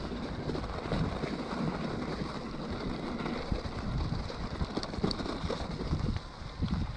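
Wind buffeting the microphone over the rumble of a Scott E-Genius e-mountain bike's plus-size tyres rolling through wet snow and slush, with uneven low bumps and a few light clicks from the bike.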